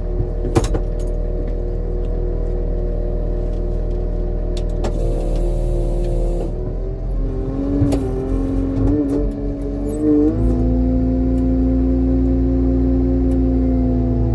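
Diesel engine of a New Holland F156.6A motor grader running under load while grading a dirt road. Its note wavers partway through and settles at a new steady pitch, slightly louder, about ten seconds in, with occasional short knocks.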